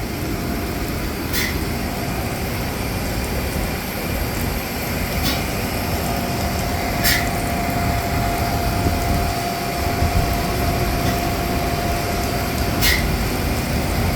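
Steady low rumble of running machinery, with a faint steady whine coming in about six seconds in and a few sharp clicks scattered through.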